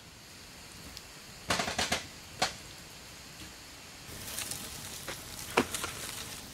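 Log fire in a steel fire pit crackling. A quick cluster of sharp pops comes about a second and a half in and a single crack shortly after, then a light hiss of flame from about four seconds in, with one louder pop near the end.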